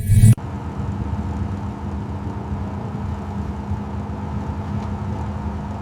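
A louder pulsing engine sound cuts off suddenly a moment in. A car engine then idles steadily with an even low rumble.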